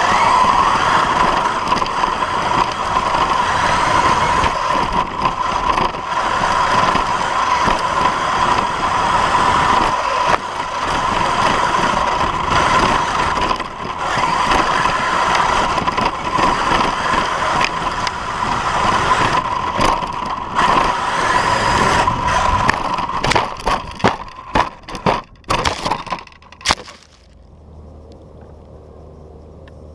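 RC car driving over a dirt track, heard from a camera mounted on the car: a steady motor whine under constant rattling, knocks and crunching from the chassis and tyres. Near the end the motor comes in short stop-start bursts, then cuts off, leaving only a faint low hum.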